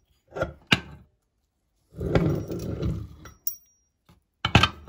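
Hand-cranked metal meat grinder being taken apart: sharp metal clinks and knocks, about a second of scraping as the feed screw is drawn out of the housing, then a short metallic ring and a loud clatter of parts near the end.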